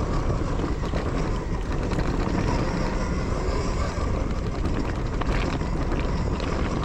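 Riding noise from a Zero FX electric dirt bike on a rough trail: a steady low rumble of wind and tyres, with a faint thin whine.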